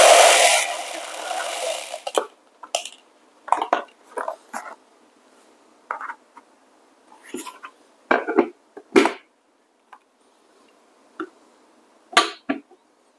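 Whole coffee beans poured from a paper bag into a clear plastic grinder hopper, a dense rattle that stops about two seconds in. After it come scattered light knocks and clicks as the bag and the hopper lid are handled.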